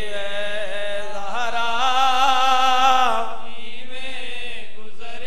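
A male reciter singing a noha, a Punjabi mourning lament, in long drawn-out wavering lines, loudest about two seconds in.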